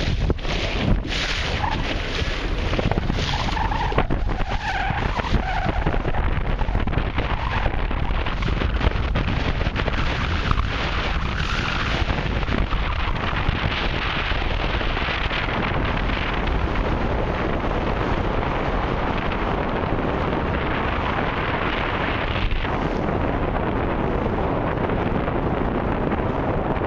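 Steady wind buffeting the microphone over the rush of choppy sea water, heavy in the low end.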